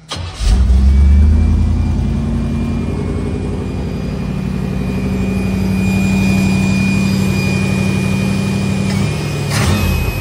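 Car engine fed by a freshly rebuilt Edelbrock 650 carburetor starting on a test start: it catches within about half a second and then idles steadily, loudest just after it fires. A short surge comes near the end.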